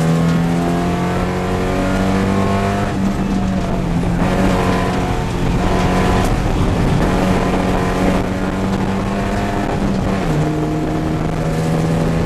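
Porsche 944 Spec race car's four-cylinder engine under hard load, heard inside the cabin, its pitch climbing steadily as it revs up through the gear, then dropping sharply about ten seconds in as it shifts up and pulls again.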